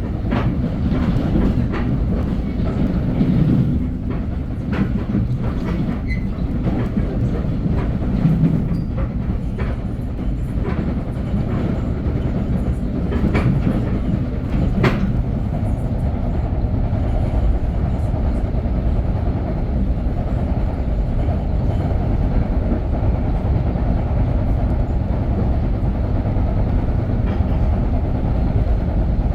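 Metro-North commuter train running along the track: a steady low rumble with scattered clicks of the wheels over rail joints.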